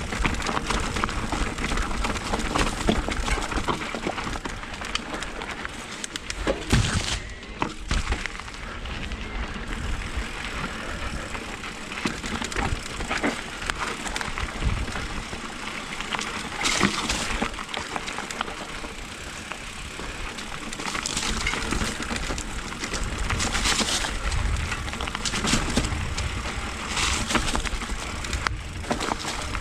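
Mountain bike ridden over a dirt trail, heard from a camera on the rider: wind rushing over the microphone with tyre noise and frequent rattles and clacks over bumps.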